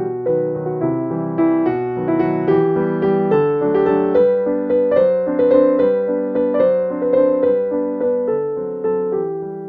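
Background music: a gentle piano piece with notes struck and left to ring and fade.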